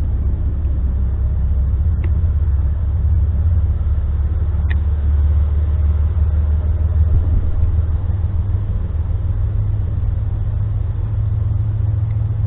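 Steady low rumble, with two faint short clicks about two and four and a half seconds in.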